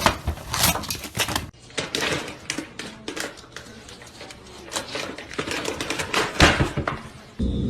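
Irregular clicks, knocks and clattering in a small room.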